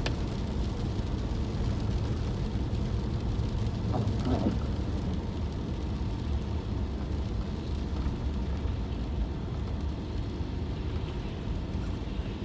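Steady engine and road rumble inside the cabin of a moving car.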